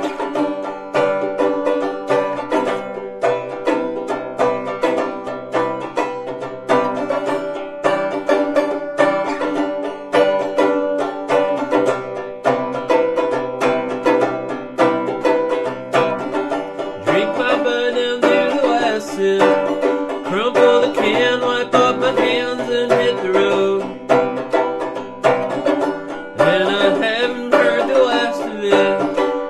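Instrumental intro of a folk song played live: fast, continuous picking on plucked string instruments. The sound grows fuller and brighter about halfway through, and again near the end.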